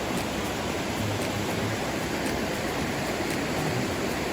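Stream of running water, a steady rushing hiss.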